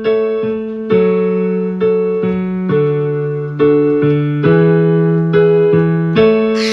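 Keyboard music: a piano-like electric keyboard playing a slow run of sustained chords, a new chord struck about every half second to a second.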